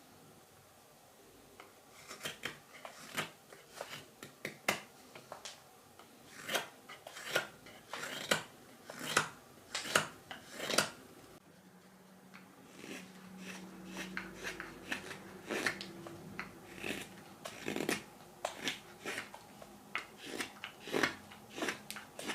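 Carving knife slicing shavings from a green wild cherry spoon blank: a run of crisp cuts about two a second, a short pause about eleven seconds in, then more cuts.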